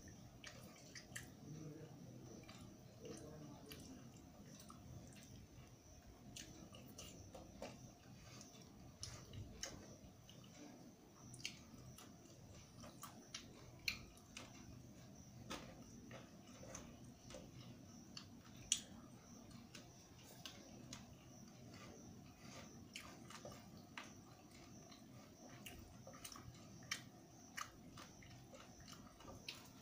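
A person eating rice and dal by hand: quiet chewing and mouth sounds, with scattered small sharp clicks as the fingers mix food on a steel plate.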